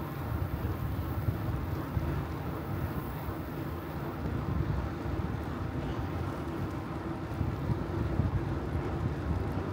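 Wind buffeting a microphone on a moving bicycle: a steady low rumble with constant flutter.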